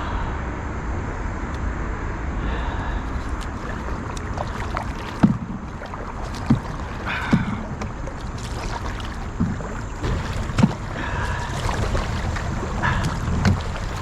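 Kayak paddle strokes splashing, with several sharp knocks, while paddling hard against a strong river current. Under them is a steady rush of water and wind on the microphone.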